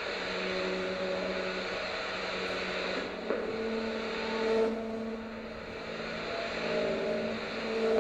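Quiet contemporary chamber music for viola, cello and tape player: long held low notes over a steady hiss, with a small click about three seconds in.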